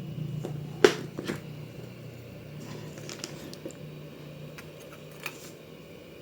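DIY hot air soldering station's blower running with a steady low hum, under a few sharp clicks and taps, the loudest about a second in.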